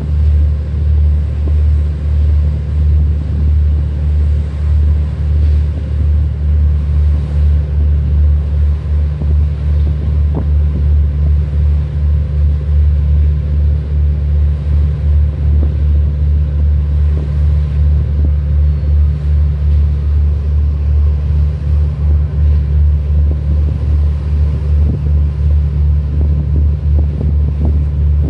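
Steady low drone of a boat engine heard from aboard the boat, throbbing regularly, with some wind on the microphone.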